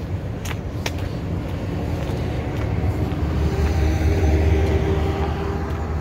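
A motor vehicle passing on the road alongside, its engine and tyre rumble swelling to a peak about four seconds in and then easing off. A few footsteps on the concrete path in the first second.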